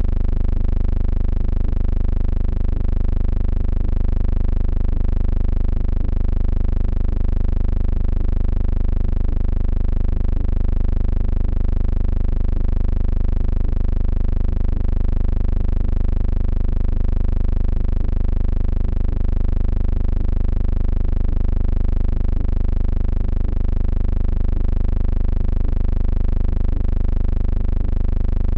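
A steady, unchanging low drone with a thin hiss above it, at one level throughout.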